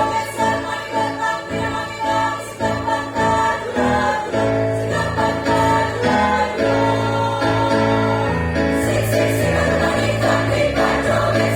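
A choir singing in harmony, holding chords that change every second or so over a low bass part.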